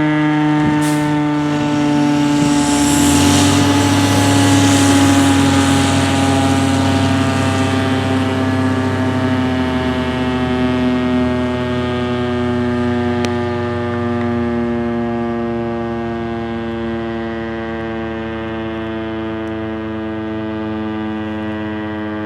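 Federal Signal STH-10 outdoor warning siren sounding a steady Alert tone, one sustained wail. The pitch sags slowly and the loudness eases a little as it goes on.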